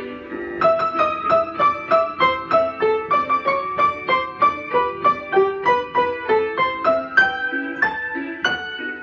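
Upright piano played by hand: a held chord, then a lively run of quick, short notes at about four a second.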